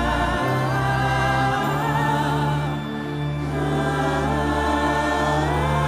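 Live gospel worship music: voices sing long, held notes over sustained chords, and the bass note shifts twice in the first two seconds.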